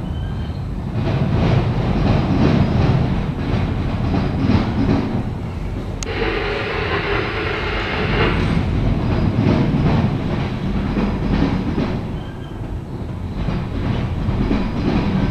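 CSX local freight train's autorack cars and boxcars rolling past close by: steady wheel rumble with rapid clickety-clack over the rail joints. A sharp click about six seconds in is followed by a couple of seconds of louder rattling.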